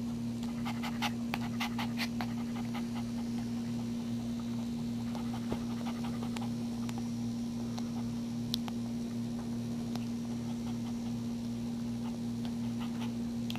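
Mother dog panting after giving birth, over a steady electrical hum, with a quick run of soft clicks in the first two seconds and a few single clicks later.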